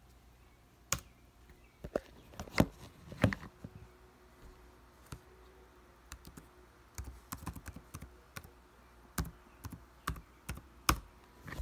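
Keys on a Dell laptop keyboard pressed one at a time: irregular clicks and taps spread throughout, with a quicker run of keystrokes past the middle, as the user signs in.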